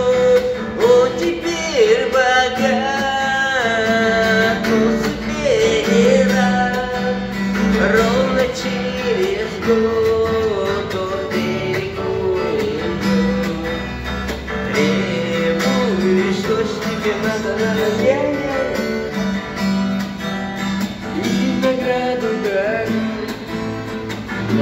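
Acoustic guitar strummed steadily, with a wavering sung melody line over it that pauses and comes back every few seconds.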